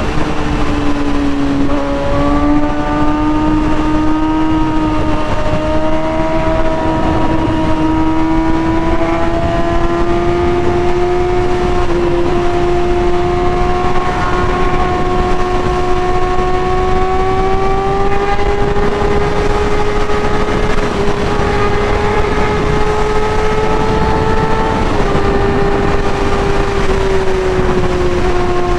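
Kawasaki ZX-6R inline-four with an M4 GP exhaust, holding high revs while riding, its pitch climbing slowly and evenly, then dipping briefly near the end. It sounds over a steady rushing noise.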